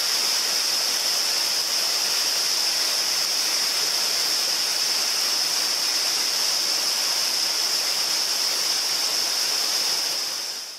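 Steady rushing of a waterfall, with a steady high-pitched hiss standing out above it; the sound fades out at the very end.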